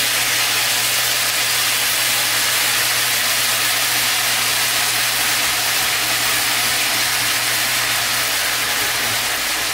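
Marinated beef short ribs frying in a pan: a steady sizzle of meat and marinade in hot oil, with a steady low hum underneath.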